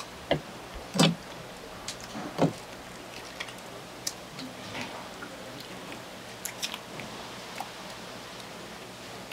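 Gloved hands handling and pulling apart cut sea squirt flesh on a plastic cutting board: scattered clicks and taps, the three loudest in the first two and a half seconds, over a steady low hum.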